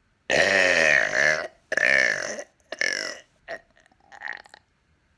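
A man burping loudly: a long burp of about a second, then a shorter second one, then a brief third, each shorter than the last, followed by a few faint mouth sounds.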